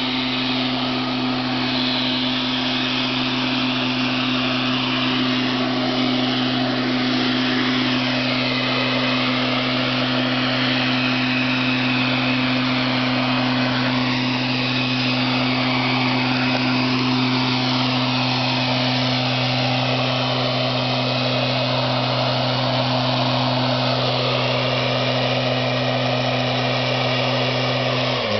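Petrol backpack leaf blower running steadily, a constant engine drone under the rush of air from the nozzle. Its pitch dips briefly right at the end.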